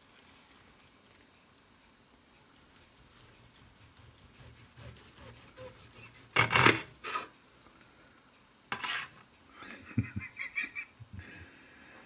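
A serrated bread knife sawing through a cooked pork joint on a stainless-steel tray, the blade and a carving fork scraping and clinking against the metal. It is quiet at first, with two sharp scrapes about six and a half and nine seconds in, then a run of short knocks and scrapes near the end.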